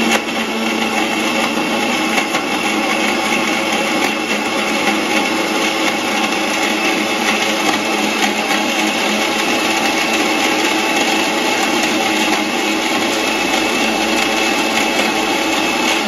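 Inalsa mixer grinder running steadily with a high motor whine, blending chopped mango, dates, soaked nuts and oats with a little water in its steel jar.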